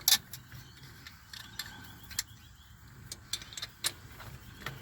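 Scattered small clicks and creaks of a plastic air line being worked and pushed onto its fitting, with a sharper knock just after the start.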